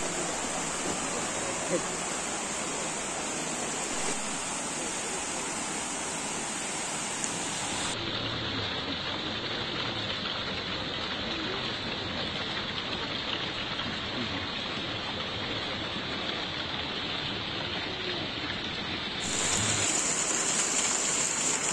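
Steady rush of flowing water from a forest stream spilling over rocks in a small waterfall, a little louder near the end.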